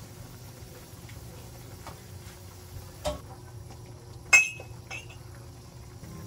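Cookware clinking while chicken feet adobo is stirred in a nonstick frying pan with a wooden spatula, the metal pan lid set aside: a knock about three seconds in, then a sharp ringing clink, the loudest sound, a little after four seconds, and a lighter clink just after. A low steady hum lies underneath.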